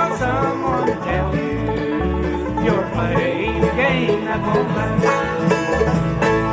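Bluegrass band of guitar, bass, mandolin and banjo playing the closing instrumental bars, with quick plucked-string runs over the bass. A final chord is struck near the end and left ringing.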